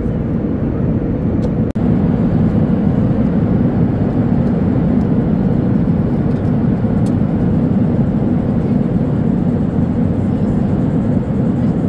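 Steady low roar of a jet airliner's cabin in flight, the engines and airflow heard from a passenger seat. It cuts out for an instant just under two seconds in.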